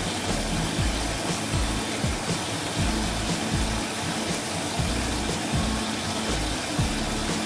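Background music over a steady rushing noise.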